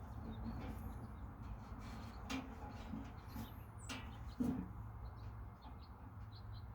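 Faint bird chirps over a steady low outdoor rumble, with a couple of sharp clicks and a soft knock of handling partway through.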